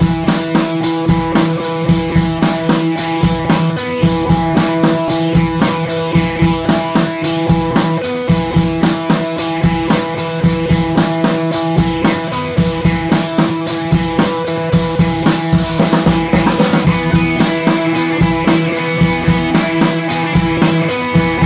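Background music with a drum kit keeping a steady beat under guitar.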